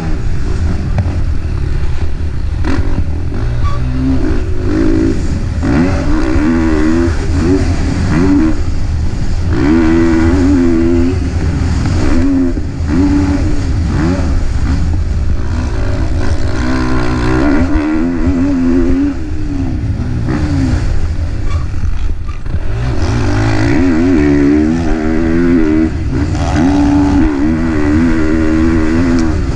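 KTM 450 four-stroke motocross bike engine heard close up from a camera mounted on the bike, revving up and dropping back again and again as it is ridden hard around a dirt track.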